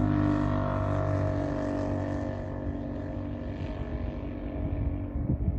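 Electronic carillon bell tones from rooftop horn loudspeakers, several notes ringing together and fading out over the first two seconds. After that a low rumbling noise, stronger near the end.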